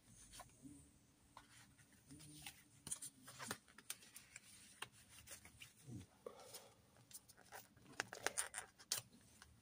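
Faint rustling and scraping of paper and card: picture cards slid in and out of a paper pocket in a handmade junk journal and its pages handled, with scattered soft clicks.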